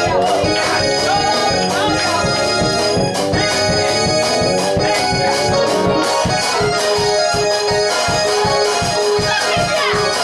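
Electronic keyboard playing quick chords and runs over a fast, steady beat, with a note repeated over and over in the second half.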